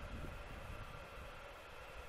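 Wind buffeting the microphone outdoors: an uneven low rumble with a faint steady hiss.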